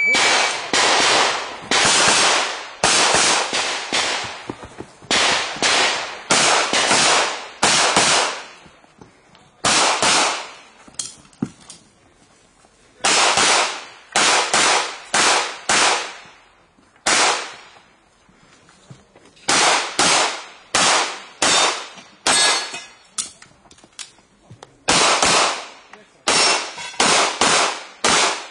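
Rapid handgun gunfire during a practical-shooting stage: sharp shots, many in quick pairs, in strings broken by pauses of one to two seconds, each shot trailing off in a short echo.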